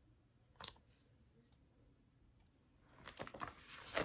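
Paper pages of a hardcover picture book being turned, with rustling and crinkling starting about three seconds in. A brief soft noise comes about half a second in.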